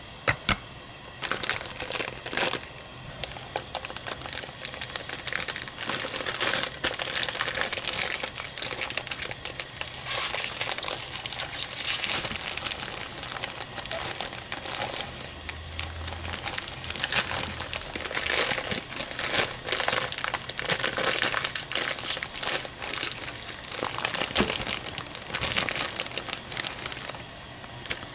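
Plastic Jin Ramen noodle packets crinkling and rustling over and over as they are torn open and handled.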